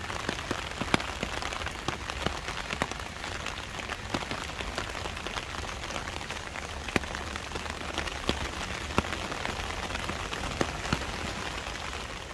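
Steady rain falling on wet paving, with many sharp, single drop hits close by scattered through it.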